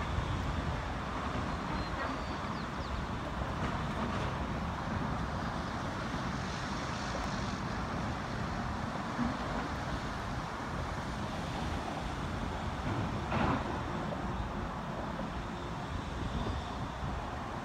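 Steady hum of road traffic on the Golden Gate Bridge and its approach, with a brief louder swell about thirteen seconds in.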